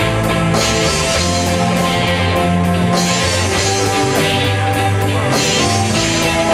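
Live rock band playing: electric guitars holding sustained chords over bass and a drum kit, with cymbal hits at a regular pulse.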